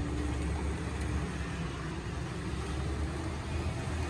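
Peterbilt 320 garbage truck with an Amrep automated side loader, its engine running with a low, steady rumble as it drives off.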